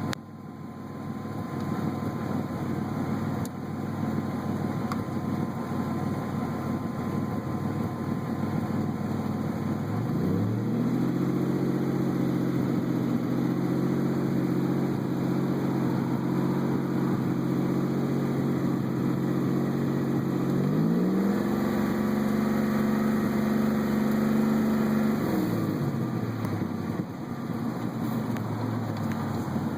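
Buick Regal GS engine idling, then held at raised revs from about ten seconds in, raised further around twenty-one seconds, and dropping back to idle near twenty-six seconds. The engine is being checked for a random misfire.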